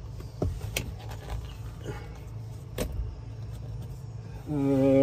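A few light clicks and rattles as the rubber shift boot and its metal trim plate are lifted off the floor shifter of a 1984 Chevy S10. Near the end a short, steady pitched hum sounds for under a second.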